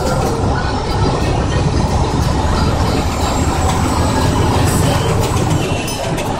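Cab noise inside a heavy truck at highway speed: a steady deep rumble of engine and road, with a few short rattles and clicks.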